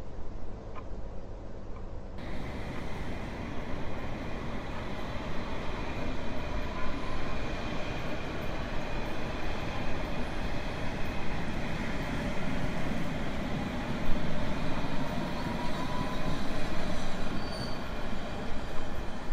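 Train running on the rails: a steady rumble and rattle that becomes fuller about two seconds in, with faint wheel squeals now and then.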